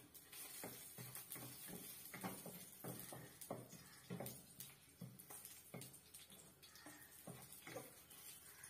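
Wooden spatula stirring dried chilies in a wok: faint, irregular knocks and scrapes of wood on the pan, about two a second.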